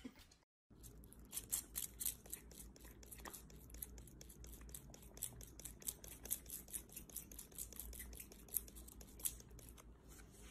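A cat's fur being brushed: faint, quick, scratchy strokes of a hand-held grooming brush, about four a second.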